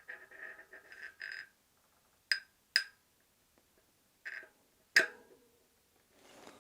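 A bike hub axle being pushed through the wheel hub and its bearings: a short scraping rub, then several sharp clicks, the loudest about five seconds in.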